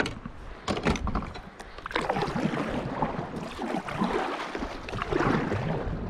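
Kayak paddle strokes: the blades dip and pull through the river water in a run of swishing splashes that swell and ease with each stroke. A couple of sharp knocks come in the first second.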